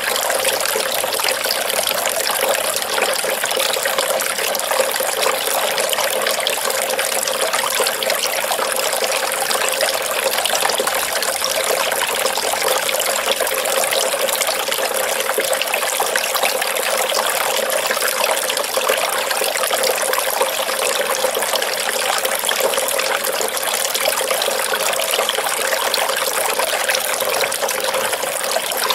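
Small decorative garden fountain running on its electric pump: a thin stream of water pouring steadily from the spout and splashing into the basin.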